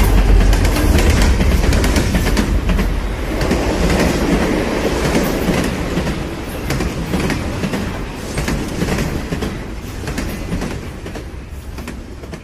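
Train running on rails, its wheels clattering, growing steadily quieter over the whole stretch.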